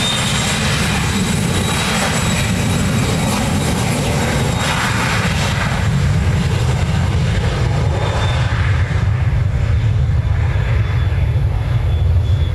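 Learjet business jet's twin rear-mounted turbofans running on the runway: a steady jet noise with a faint high whine, its rumble growing louder over the second half as the engines power up for the take-off roll.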